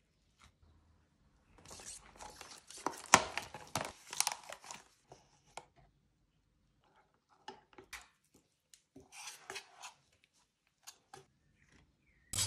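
Short bouts of scraping and crinkling with scattered small clicks, the longest and loudest about two to five seconds in and another near the end. These are kitchen handling sounds: a plastic scraper spreading asparagus-waste paste across a mesh mat, and a spoon of white powder handled over crinkling paper.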